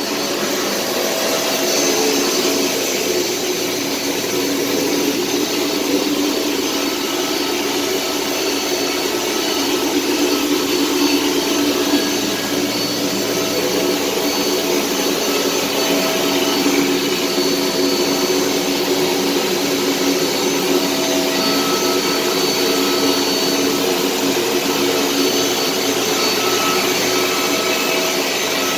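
Chemcut XL etch line running: a steady, loud mechanical whir with a few faint steady tones, even throughout.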